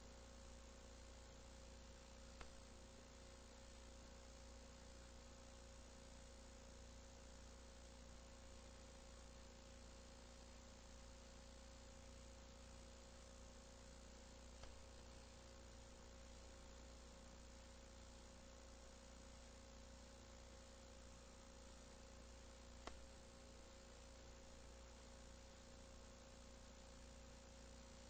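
Near silence: the faint steady hiss and hum of an old videotape's soundtrack, with three faint clicks.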